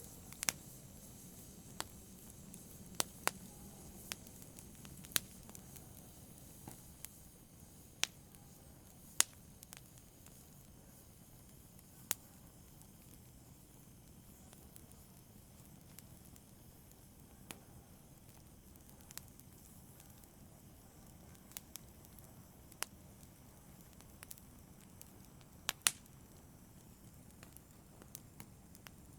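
Wood fire in a fireplace crackling: irregular sharp pops, a couple of dozen spread through, over a faint steady hiss of burning. The loudest pops come about nine seconds in and near the end.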